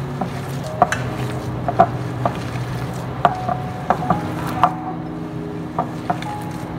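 Hands squeezing and mixing a mash of boiled potato and shredded chicken in a glass bowl, with irregular sharp clicks and light knocks of fingers against the glass, some ringing briefly. A steady low hum runs underneath.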